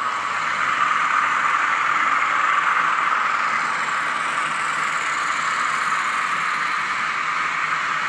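Diesel locomotive engine sounds from the sound decoders of several N gauge model class 50 and class 47 locomotives running together, played through their small onboard speakers: a steady engine drone with little bass.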